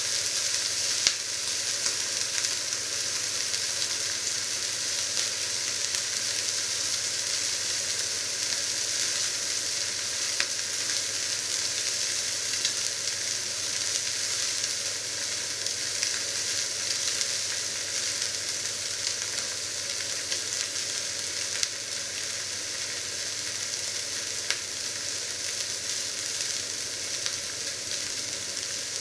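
Marinated piece of meat searing in a hot black steel pan: a steady frying sizzle with occasional sharp pops.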